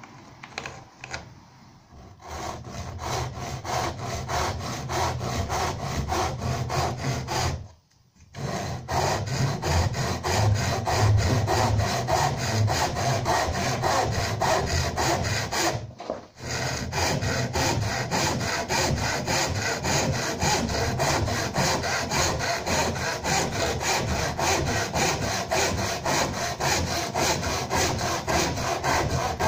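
Handsaw cutting through a timber door frame leg by hand: steady back-and-forth strokes starting about two seconds in, with two short pauses, about a quarter and just over half the way through.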